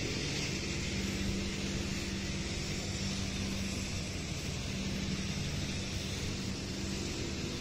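Grass trimmer engine running at a steady speed, a constant-pitched drone over a steady hiss.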